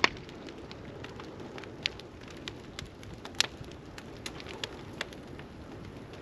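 Bonfire of sawmill slabs and logs burning: a steady hiss of flames with irregular sharp pops and crackles, the loudest right at the start, about two seconds in and about three and a half seconds in.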